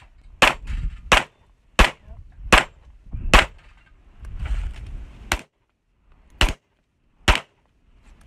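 Glock 19X 9mm pistol being fired: eight shots. The first five come at a steady pace about two-thirds of a second apart. After a pause of about two seconds, three more follow, spaced a second or so apart.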